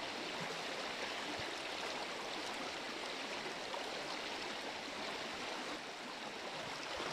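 Rushing water of a shallow river rapid running over rocks, a steady, even rush.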